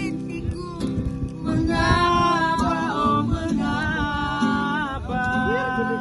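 A song with a sung vocal melody held in long notes over a guitar accompaniment.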